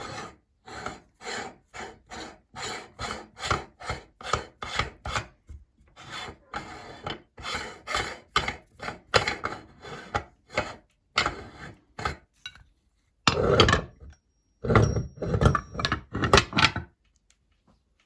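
A meat grinder grinding and rasping through a Colgate item, in regular strokes about two a second, then a few louder, longer grinding bursts after a brief pause before it stops.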